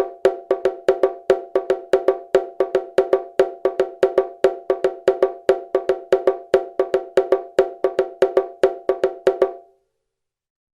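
Bongos played in a fast, steady pattern of sharp, ringing hand strikes, several a second, stopping abruptly near the end.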